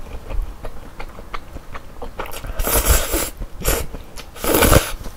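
Someone slurping stir-fried instant noodles: two long, loud slurps, the first about two seconds in and the second near the end, with small wet chewing clicks between them.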